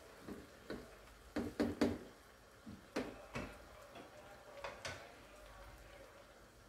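A spatula knocking and scraping against a nonstick cooking pot while stirring a thick okra and meat curry: irregular clunks, a quick cluster of them about a second and a half in, dying away after about five seconds.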